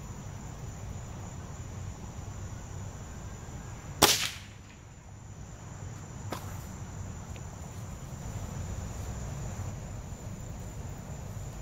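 A single shot from an Umarex Surge break-barrel air rifle about four seconds in, one loud sharp crack, then a much fainter click a couple of seconds later. Crickets trill steadily throughout.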